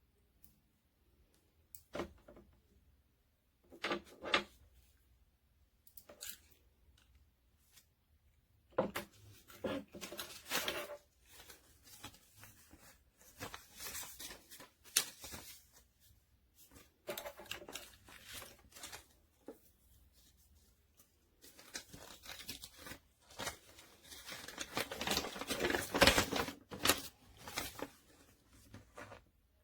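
Irregular rasping and rustling handling noises: scattered short bursts at first, then two longer stretches of several seconds each, the loudest near the end.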